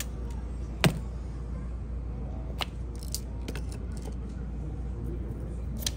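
A rubber station stamp being pressed onto a paper card and set down on a wooden counter: a sharp knock just under a second in, a smaller one a little past two and a half seconds, and a few faint clicks after, over a steady low hum.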